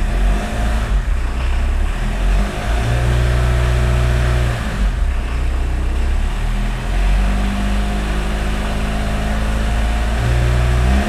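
Diesel engine of a 1981 VW Rabbit pickup, heard from the cab, idling and revved up a few times, its pitch rising and falling. It runs on a newly fitted drive belt, with no belt squeal that the owner can hear.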